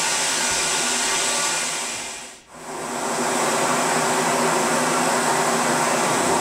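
Compressed-air lance blowing: a loud, steady hiss of the open air jet. It dies away about two seconds in and comes back half a second later.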